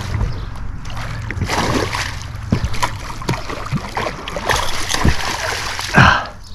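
A hooked musky thrashing and splashing at the water's surface during the fight, in short irregular splashes, with a louder one just before the end.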